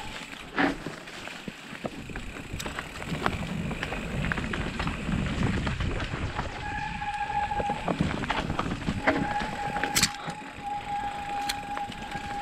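Mountain bike rolling over rough, rocky singletrack: tyre noise and rumble with frequent sharp clicks and rattles from the bike over rocks and roots. A steady thin whine comes in briefly past the middle and again for most of the last few seconds.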